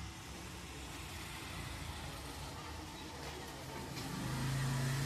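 Motor vehicle engine running, a low steady rumble that grows louder about four seconds in.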